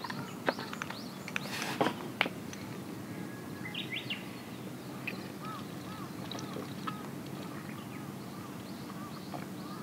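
Outdoor background with birds calling: a short burst of high chirps about four seconds in, then a short call repeated about twice a second through the second half. A few light clicks sound in the first two seconds.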